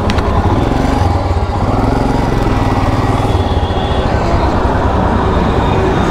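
Royal Enfield Himalayan's single-cylinder engine running steadily while riding, with a constant rush of wind on the microphone.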